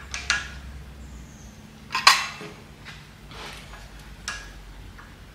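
A few brief clicks and rustles from handling wires and tools during soldering work, the loudest about two seconds in, over a faint low hum that stops about a second and a half in.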